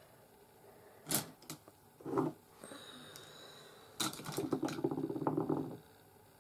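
Makeup items being handled on a tabletop: a couple of sharp clicks and a knock, then about two seconds of rapid clicking and rattling.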